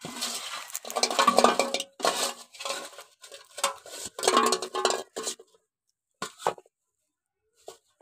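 Small snail shells clinking and clattering in a hand and against a metal bowl, in quick dense bursts for about five seconds, then a few scattered clicks.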